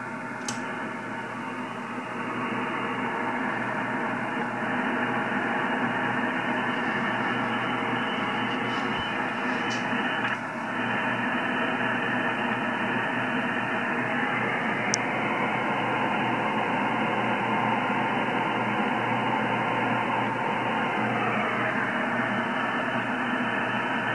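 Icom IC-7410 HF transceiver receiving on the 10-metre band in upper sideband: steady band noise and static through the receiver's narrow voice filter, with faint steady tones in the hiss. It grows louder over the first few seconds, then holds steady.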